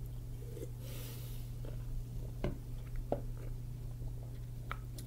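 Quiet drinking from an energy drink can: a soft breath about a second in, then a few faint clicks and small knocks as the can is handled and lowered to the desk, over a steady low hum.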